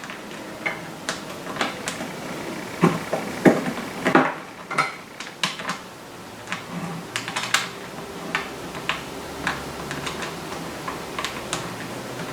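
Irregular light clicks and taps of small hardware being handled against a plastic bucket: a nut and washer being fiddled onto a bolt through the bucket's side.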